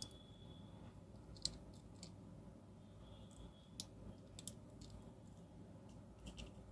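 Near silence broken by a few faint, scattered clicks and taps of small parts being handled, the sharpest about a second and a half in.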